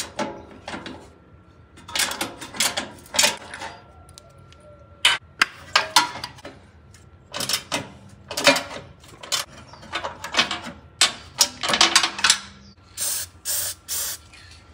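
An aerosol can of penetrating oil spraying onto bolt threads in short hissing squirts, three quick ones near the end. Before that come clusters of clicks and clanks from hand tools working a bolt on the truck's underside.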